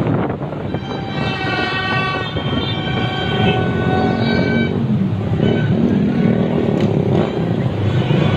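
Motorbike and scooter engines in heavy street traffic, heard from a moving motorbike with wind on the microphone. Horns sound in long, held blasts of several pitches at once from about one second in until nearly five seconds.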